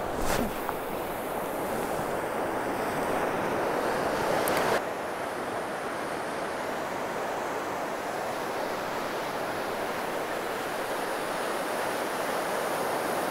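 Ocean surf washing through shallow water, a steady rushing wash that is louder for the first few seconds and drops off suddenly about five seconds in.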